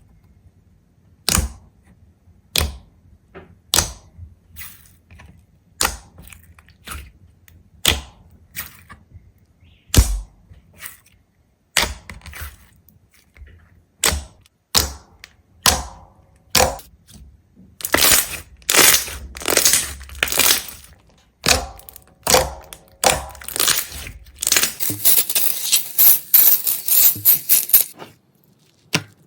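A series of sharp cracks and snaps, about one a second at first, crowding together into dense crackling during the last third, then stopping shortly before the end.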